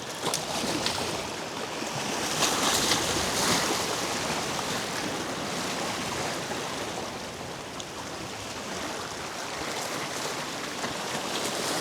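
Surf washing against a rock jetty: a steady rush of water that swells a little now and then.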